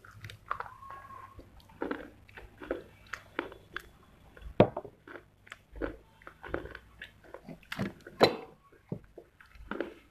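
Person biting and chewing pieces of a fired clay pot: irregular sharp crunches and crackles with grinding chews between them. The loudest bites come about four and a half and eight seconds in.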